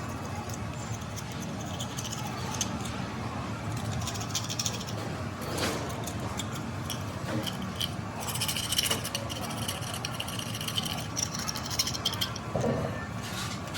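Workshop handling noise: metal parts clicking, clinking and scraping over a steady background noise, with a run of bright, ringing metallic rattles from about eight to eleven seconds in.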